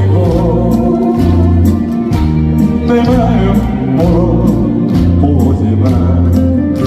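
Korean trot song played live by a backing band, with a steady drum beat under sustained melody and bass.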